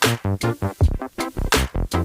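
Electronic music with a drum-machine beat and short, choppy synth notes in quick succession.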